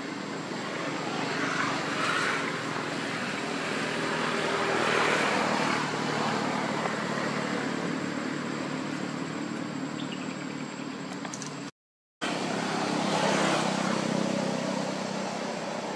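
Steady outdoor background noise with a low hum, swelling and fading several times like distant passing traffic, broken by a sudden half-second gap of silence about three-quarters of the way through.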